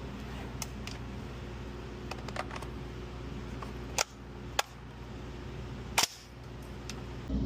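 Three sharp shots from a 12-gauge bullpup shotgun in a Steyr AUG-style stock: one about four seconds in, a second half a second later, and a third near six seconds. Lighter clicks come before them.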